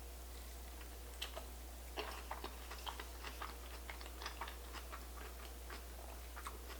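Close-miked chewing of a soft sushi roll: irregular small wet clicks and smacks that begin about a second in.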